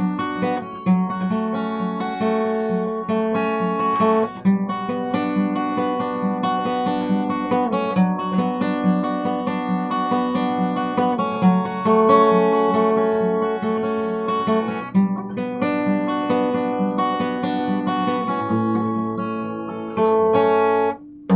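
Acoustic guitar finger-picked, playing a chord accompaniment without singing: the song's instrumental outro. A louder chord rings about a second before the end, then the playing stops.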